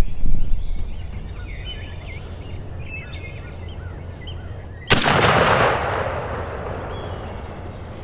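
A single shotgun shot at a gobbling turkey about five seconds in, sharp, with a long echo that fades over a couple of seconds. Small songbird chirps sound faintly before it.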